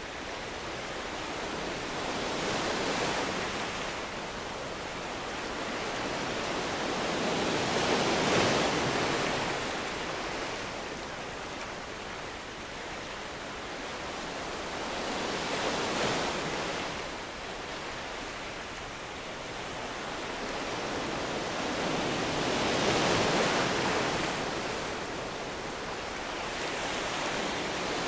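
Ocean surf breaking and washing onto a sandy beach. The rush swells and fades in slow surges, one every five to seven seconds.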